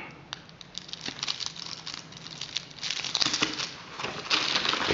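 Clear plastic bag and foil firecracker packets crinkling and rustling as they are handled, a dense crackle that swells around three seconds in and again near the end.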